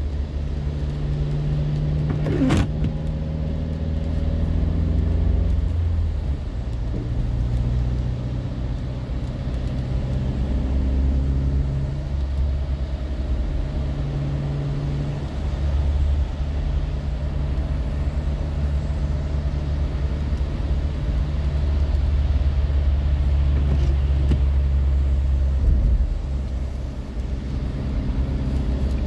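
Car cabin noise while driving on a wet road: a steady low drone from the engine and road, shifting slightly in pitch with speed, over a hiss of tyres on wet pavement. One brief sharp click about two and a half seconds in.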